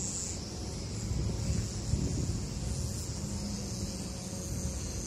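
Insects chirring in a steady high-pitched drone, over a constant low rumble.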